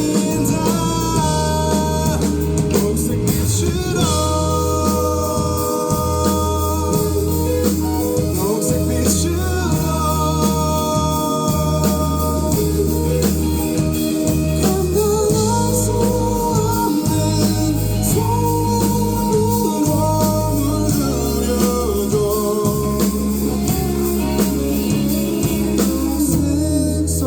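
A live band playing a song, with a singer over the band and a steady bass line underneath.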